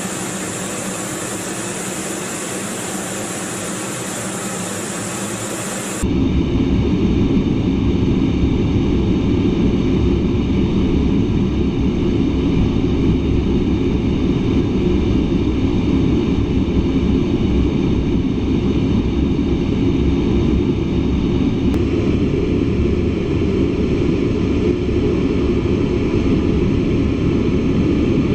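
A-10 Thunderbolt II in flight, a steady rush of airflow and turbofan engine noise with no break in it. About six seconds in it cuts abruptly to a louder, deeper steady rumble inside the cockpit.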